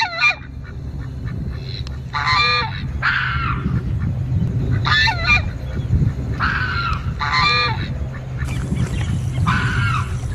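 Geese honking: short calls in quick pairs, the second of each pair lower, every couple of seconds. A steady low hum runs underneath.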